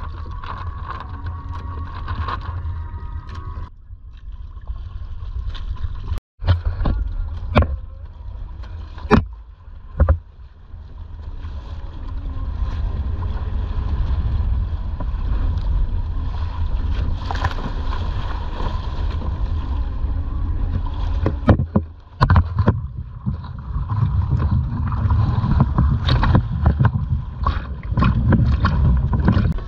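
Wind buffeting the microphone with a low rumble over water rushing and splashing along a Hobie sailing kayak's hull as it moves through choppy water, broken by several sharp knocks or slaps of waves against the boat.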